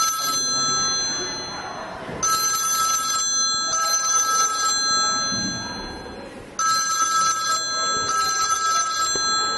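Desk telephone ringing: three long rings, each starting sharply, at about the start, two seconds in and six and a half seconds in.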